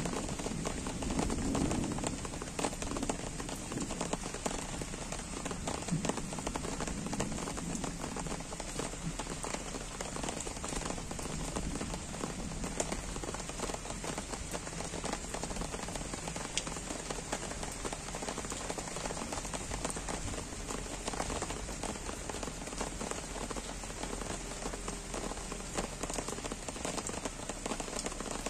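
Gentle rain falling steadily on trees, lawn and paving: an even hiss of many fine drops. A louder, low uneven sound dies away in the first two seconds.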